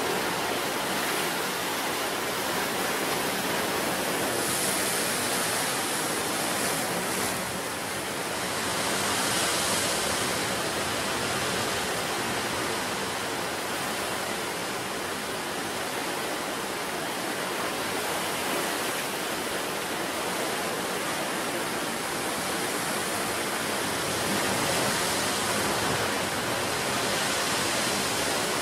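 Sea surf washing in on the shore, a continuous rushing sound that swells louder a few times as waves break.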